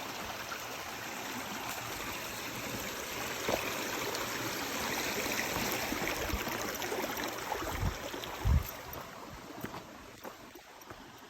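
Mountain creek rushing over rocks, a steady wash of water that swells and then fades near the end. Two low thumps come about eight seconds in.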